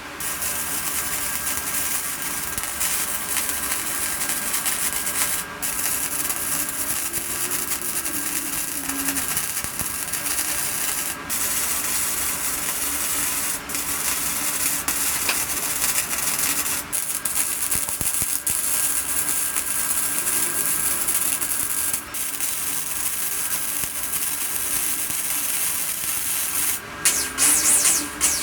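Power grinder abrading metal: a steady gritty hiss over a faint motor whine, with several brief breaks where the tool lifts off.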